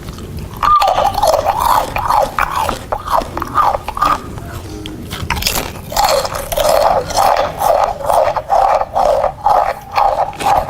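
Loud chewing and crunching of a snack amplified through a handheld megaphone. It starts about a second in, pauses briefly midway, then goes on in a steady rhythm of about two chews a second.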